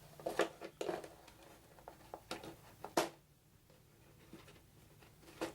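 Light clicks and rustles of hard plastic board-game miniatures and their plastic packaging being handled and set down, a few scattered taps with the sharpest about three seconds in.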